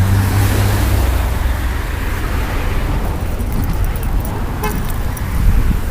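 Motor vehicle running on the road with a low rumble of engine, road and wind noise; a loud steady low tone at the start fades out about a second in.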